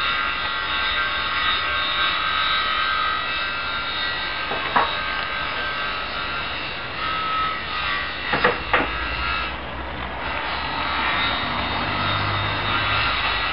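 Model railway train running on its track, a steady rasping buzz with a few sharp clicks partway through.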